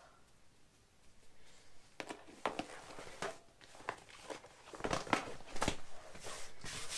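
Folded Intex vinyl air mattress being unfolded and spread out by hand: crinkling and rustling of the stiff plastic sheet with soft slaps, starting about two seconds in and getting louder near the end.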